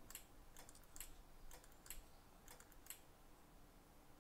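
Faint, irregular small clicks and ticks, a few a second, from fingers handling a cable connector and a small plastic circuit-board fixture.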